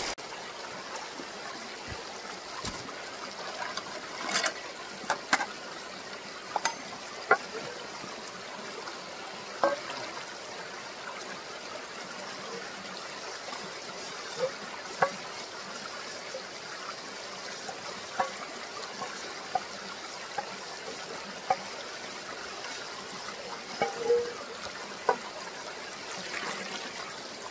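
Brook water trickling steadily, with scattered short knocks and splashes as a cooking pot is scrubbed clean with a branch in the stream.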